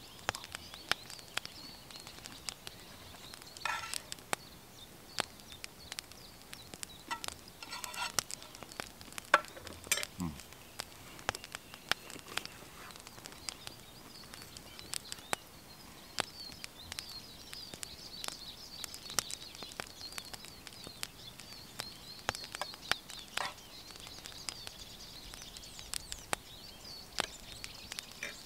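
Birds singing in the woods, a wavering high chatter with a few louder chirps, over scattered sharp clicks and crackles.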